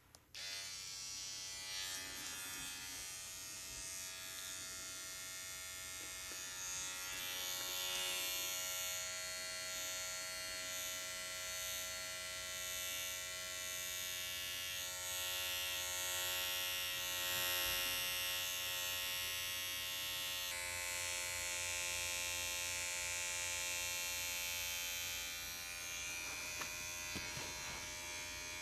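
Tattoo machine buzzing steadily, switched on at the very start. It shifts to a slightly different tone about two-thirds of the way through, with a few light clicks near the end.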